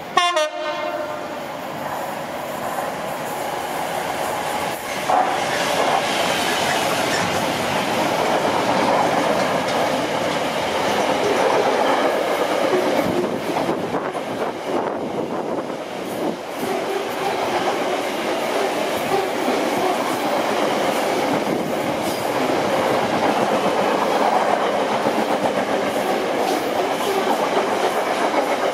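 Class 66 diesel locomotive sounding a short blast on its horn right at the start, then its engine and a long rake of freight box wagons rumbling and clattering past at speed. The sound gets louder about five seconds in as the train draws level, with wheels knocking over rail joints now and then.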